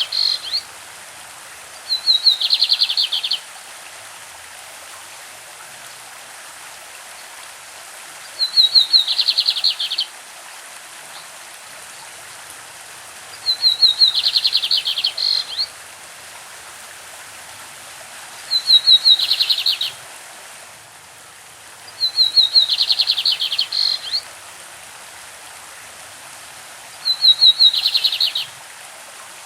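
Lined seedeater (bigodinho) singing its classic song: six short phrases, each a high opening note that runs into a rapid trill, repeated every four to five seconds. A stream keeps up a steady rushing hiss between the phrases.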